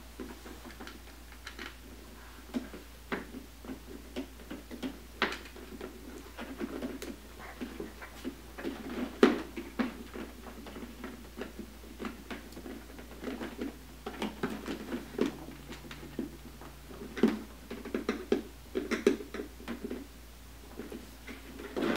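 Irregular clicks, taps and rustles of thin plastic costume parts being handled while small bolts are driven in with a hand screwdriver, with a louder knock about nine seconds in.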